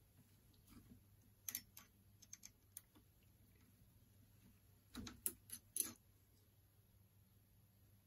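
Small metal clicks and taps as a cutting tool is fitted and set in a lathe's quick-change toolpost: a few scattered ticks, then a short cluster of clicks about five seconds in, over near silence.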